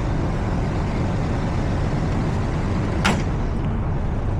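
Rooftop HVAC unit's fan running with a steady whoosh and hum while its compressors stay off, and a single sharp click about three seconds in.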